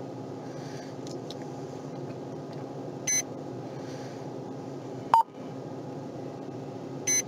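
Short electronic beeps from police-car equipment, one about three seconds in and another near the end, over the steady hum of a car's cabin. A sharp click comes about five seconds in.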